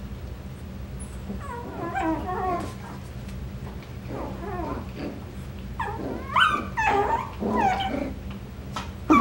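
Coton de Tulear puppies play-fighting, giving high-pitched growls and whines in short bouts, about two seconds in and again from about six seconds.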